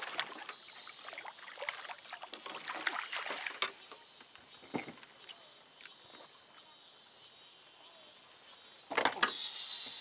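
Spinning reel being cranked and water splashing as a hooked bass is played and netted beside the boat, with dense clicking and rustling in the first few seconds and a louder burst of splashing and rustling about nine seconds in.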